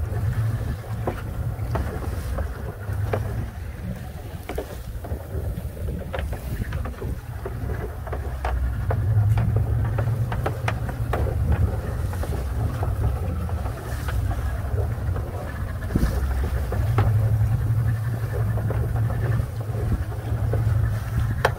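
Small open fishing boat under way on a choppy sea: a low, steady drone of the boat's motor, with wind on the microphone and water splashing against the hull, and scattered short knocks.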